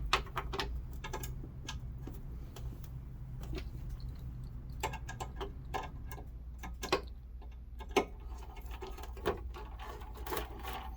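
Irregular light clicks and taps of screws and plastic scooter parts being handled during reassembly, a few sharper clicks standing out, over a steady low hum.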